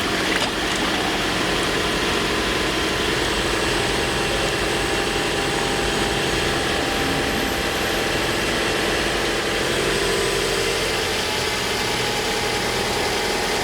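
Toyota Corolla Altis engine idling steadily, running during a full automatic-transmission fluid exchange done without a flushing machine.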